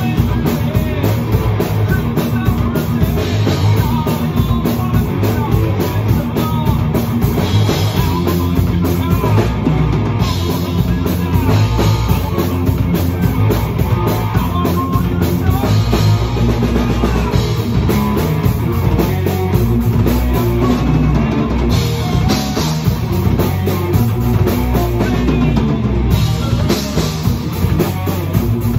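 Heavy metal rock music, a full drum kit driving it with guitar, playing without a break.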